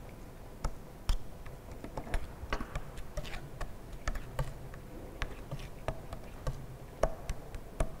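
Two metal spatula blades scraping and tapping on a glass plate while moist soil paste is mixed for a liquid limit test: irregular sharp clicks and short scrapes, several a second.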